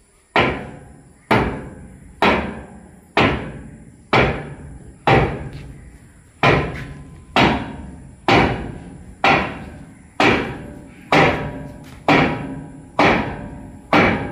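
Heavy hammer blows on the thresher shaft of a Swaraj combine, about one strike a second, each ringing briefly: the shaft and its bearing are being driven into place.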